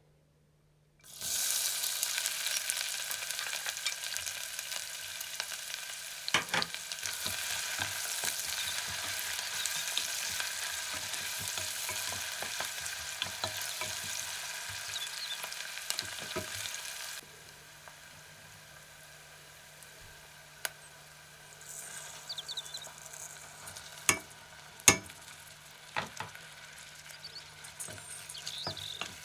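Chopped onion frying in vegetable oil in a pot: a loud sizzle starts about a second in and is stirred with a utensil that knocks against the pot now and then. The sizzle drops much quieter about two-thirds of the way through, with a few sharper knocks near the end.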